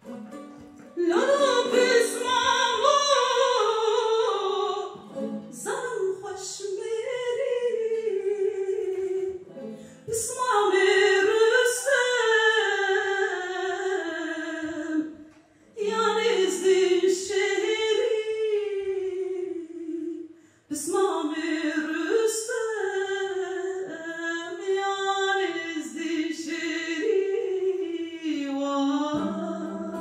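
A woman singing a slow, ornamented melody whose pitch wavers and slides, in long phrases broken by four short pauses. A few low held notes sound underneath.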